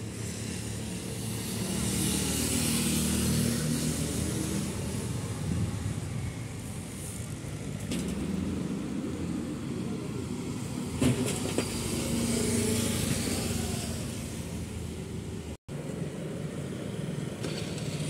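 Road traffic on a town street: cars and motorcycles passing. The sound swells as one vehicle goes by a couple of seconds in and another about twelve seconds in.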